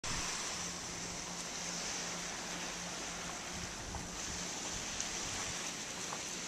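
Steady, even wash of gentle surf on a sandy beach, with no single wave standing out.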